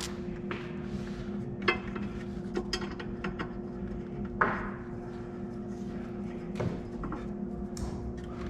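Scattered metallic clinks and knocks of hand tools and bolts as the battery hold-down bracket bolts are fitted, with one louder clatter about halfway through, over a steady low hum.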